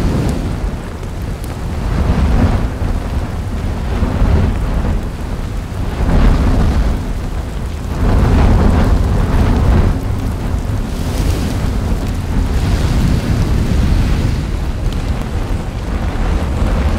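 Erupting volcanic vent with lava fountaining: a deep, continuous rumble that swells every two seconds or so, each swell adding a rushing hiss.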